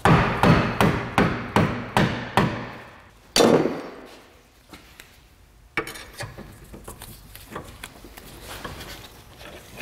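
A run of sharp metal-on-metal knocks, about three a second, then one louder knock at about three and a half seconds, as a steel drift punch is worked through the rear suspension knuckle and control arm to bring the bolt holes into line. Softer clinking and scraping of the tools on the suspension follow from about six seconds.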